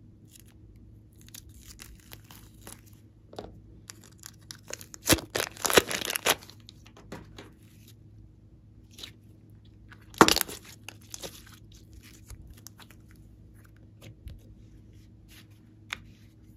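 Glossy slime squeezed and pulled by hand, giving sticky crackling and tearing sounds. A dense loud burst comes about five to six and a half seconds in and a sharp one at about ten seconds, with softer sticky clicks between.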